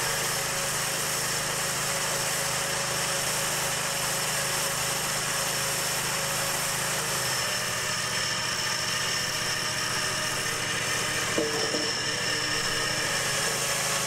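Portable chain-bar sawmill running steadily, its 23-horsepower Briggs & Stratton Vanguard V-twin engine driving the saw chain.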